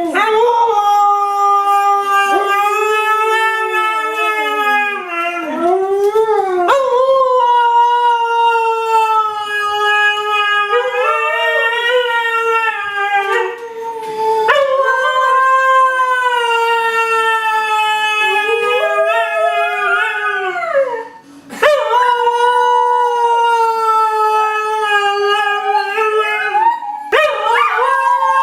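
Siberian husky puppy howling: a series of long, high howls, each held at a steady pitch and then bending up and down near its end, with short breaths between them.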